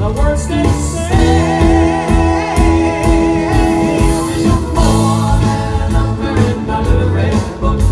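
Live band playing dance music, a singer holding notes with vibrato over bass and regular drum beats.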